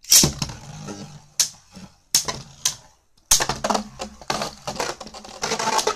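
Beyblade Burst spinning tops clattering against each other and the plastic stadium in a rapid, irregular run of sharp clicks and clacks. There is a loud hit right at the start, a brief lull, then dense collisions in the battle that ends in a ring out.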